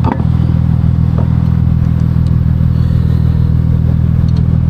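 A vehicle engine idling steadily close by, with a faint light clink about a second in.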